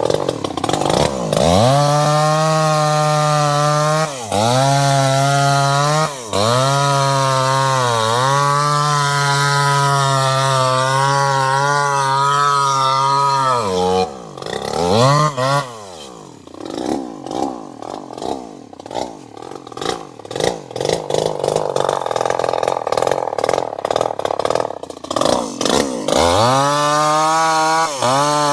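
Two-stroke chainsaw engine revving up and held at high revs, with two brief throttle dips. About halfway through it falls back to a rough, uneven idle for some ten seconds, then is revved up high again near the end.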